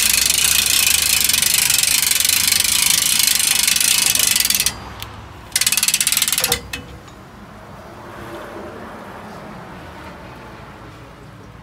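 Hand-cranked gear drive of a rotisserie smoker turning its meat racks: a loud, rapid, continuous clicking of gears. It breaks off about halfway through, starts again for about a second, then stops.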